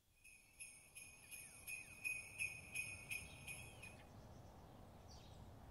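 Jingle bells shaken in a steady rhythm, about three shakes a second, playing faintly and stopping about four seconds in.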